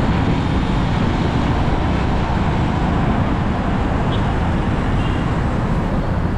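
Steady road and traffic noise recorded while travelling along a road, with a strong low rumble.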